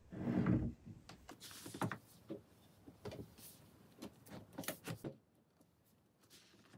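Hardcover books being set onto a shelf and slid into line: a dull thump as one is put down, then a run of short scrapes and knocks as the books are pushed and shuffled.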